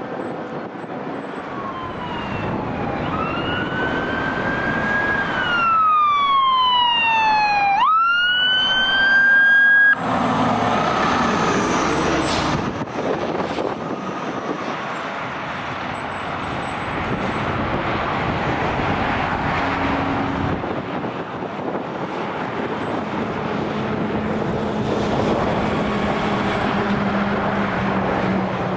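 Fire truck siren wailing: the tone climbs, falls slowly, then sweeps sharply up again and cuts off about ten seconds in. After that the truck's engine and road noise carry on.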